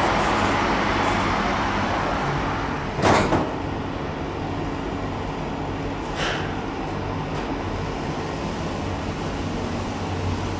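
Schindler 5400 elevator doors sliding shut and closing with a loud thud about three seconds in. Before it, traffic noise comes in through the open doors; after it, a quieter steady low hum remains, with a short hiss about six seconds in.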